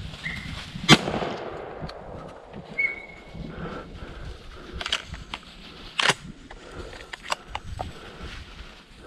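A single loud gunshot about a second in, ringing out as it fades, followed several seconds later by a few lighter sharp cracks.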